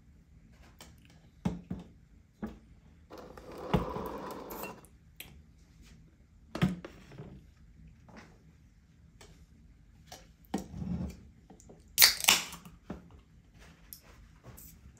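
Things being handled and set down on a table: scattered knocks and clicks, a rustling stretch about four seconds in, and a short, loud rush of noise about twelve seconds in.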